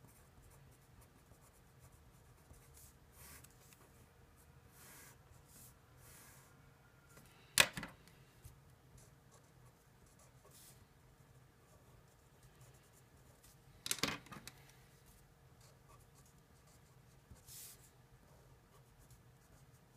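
Felt-tip pens scratching faintly on paper in short strokes while a diagram is drawn, with two sharp clicks, one about eight seconds in and one about fourteen seconds in.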